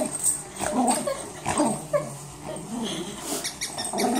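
Yorkshire terrier making a series of short, pitched vocal sounds as it wrestles with a toy.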